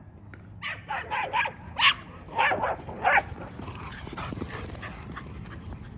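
Dog barking in a quick series of about eight barks, then stopping about three seconds in.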